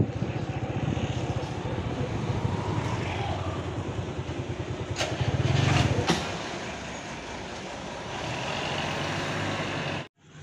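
Road traffic and vehicle engine noise heard while riding along a road, with wind on the microphone. The rumble swells with two sharp clicks about five to six seconds in, then cuts off suddenly near the end.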